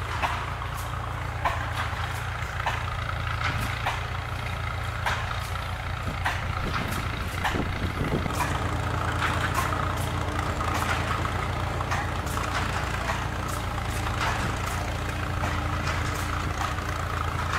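An engine idling steadily: a low rumble with scattered light clicks over it.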